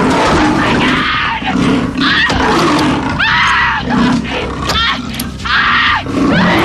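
A woman screaming in terror, several long rising-and-falling screams, as a leopard mauls her, with the animal's snarls mixed in beneath.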